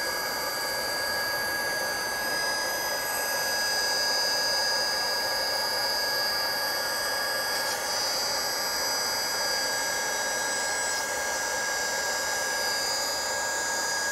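Hand-held plastic extrusion welder's hot-air blower running steadily, a high whine over a hiss. It is preheating the plastic hull until the surface goes soft enough to weld.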